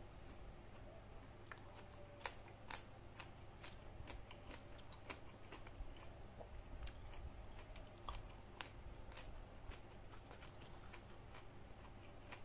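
A person chewing a mouthful of rice and greens eaten by hand, with irregular short sharp clicks of the mouth and lips.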